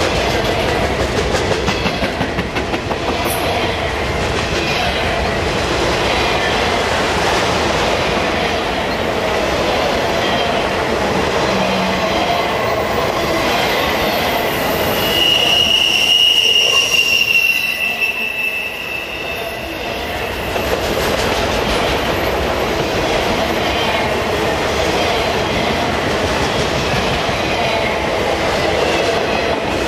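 Freight cars, autoracks and then double-stack intermodal well cars, rolling past close by with a steady rumble and clatter of steel wheels on the rails. About halfway through, a high steady wheel squeal sounds for a few seconds.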